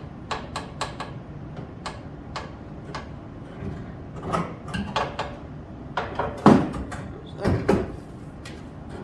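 Irregular knocks and clanks of hand work on car body sheet metal, with the loudest knocks about six and a half and seven and a half seconds in.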